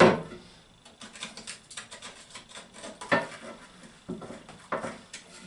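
Hand tools working the screws at the top of a ceramic toilet cistern: a sharp knock at the start, then a run of small clicks and scrapes, with louder knocks about three seconds and nearly five seconds in.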